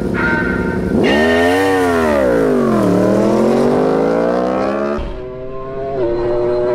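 A last countdown beep, then a McLaren 720S's twin-turbo V8 and a Yamaha R1's 998 cc four-cylinder engine launching at full throttle. Their engine note climbs, dips once and climbs again as they pull away. Near the end it gives way to a steady engine note that drops in pitch as the car goes by.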